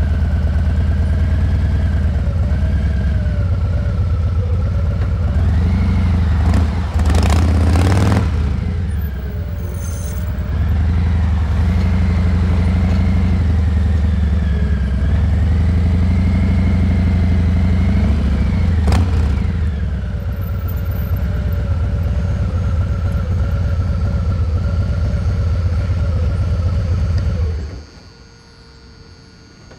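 2023 Harley-Davidson Heritage Classic's Milwaukee-Eight 114 V-twin running at low revs, its pitch rising and falling a few times, with a louder burst of noise about seven seconds in and a sharp click about nineteen seconds in. The engine cuts off about two seconds before the end, leaving a faint hum.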